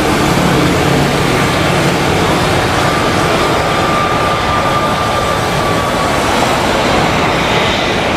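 Airbus A320 jet airliner just after touchdown, its engines making a loud, steady rush of noise as it rolls out and slows down the runway. A thin whine rides over it from about three to six seconds in.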